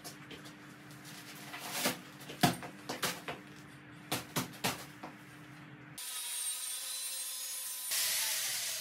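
Steel tubing being handled on a concrete floor: scattered knocks and clanks. Then a handheld power tool rasps steadily against a bent steel tube, cleaning it up after bending.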